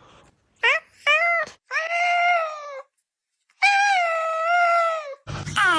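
A cat meowing: two short rising chirps, then two longer, drawn-out meows. Near the end another meow begins over a low steady hum.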